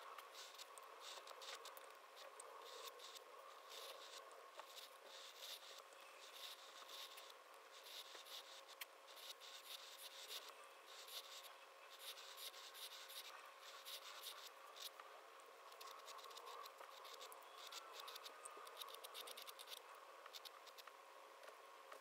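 Metal flex nib pen scratching faintly across paper in many quick, short strokes.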